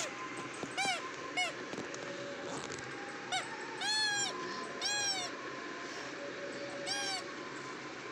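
Rubber squeeze toy squeaking about six times, short honking squeaks at irregular intervals, each rising and falling in pitch.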